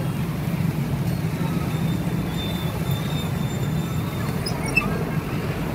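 Steady low rumble of street traffic, with a light click near the end.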